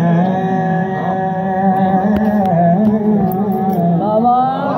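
A man singing a devotional qasida into a microphone, drawing out long, wavering notes that slide upward near the end.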